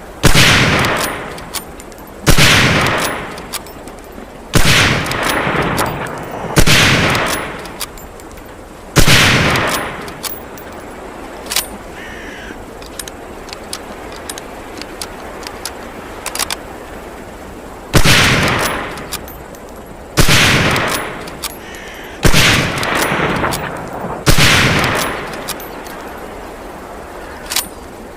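Springfield M1903A4 bolt-action .30-06 rifle firing nine single shots, each followed by a ringing echo. Five shots come about two seconds apart, then a pause of about nine seconds with only faint clicks, then four more at the same pace.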